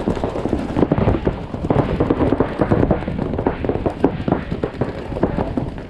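Paintball markers firing in rapid, irregular volleys, mixed with sharp thuds and knocks of paintballs hitting inflatable bunkers and of a player scrambling into cover.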